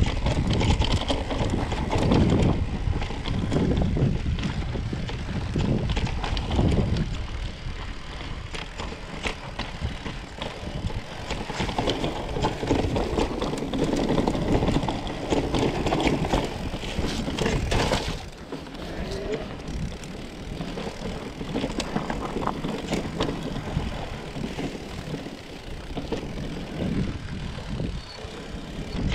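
Fantic Integra 180 electric mountain bike riding a dirt singletrack, heard from a bike-mounted action camera: tyres rolling over the dirt and the bike rattling with many small clicks over bumps, with wind rumbling on the microphone. The rumble is heavier in the first half and eases somewhat about two-thirds of the way through.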